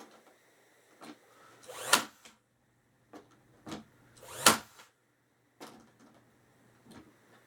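Nails being driven into wood: two loud sharp strikes about two and a half seconds apart, each preceded by a brief rising build-up, with lighter taps and clicks in between.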